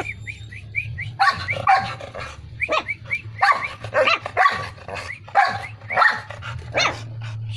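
Dalmatian–askal cross puppies barking and yipping over one another in a rapid string of short, high yaps.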